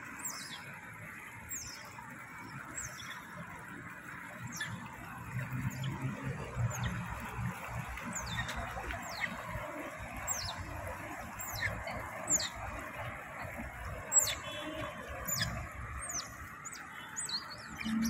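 Canal water rushing and churning past a concrete edge, with a series of short, high chirps over it, each dropping in pitch, about one every second or so.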